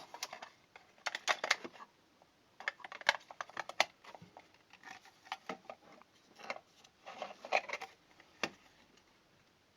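Irregular small clicks, taps and rustles of hands handling the fake security camera's small plastic parts and batteries while setting up a voltage measurement, in clusters with short pauses between.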